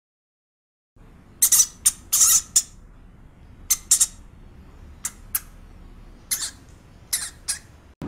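A pet rat squeaking: about a dozen short, high squeaks in small groups of two or three, starting about a second in over a faint background hum.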